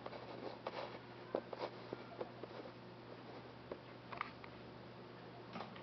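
Faint, irregular light clicks and taps over a low steady hum.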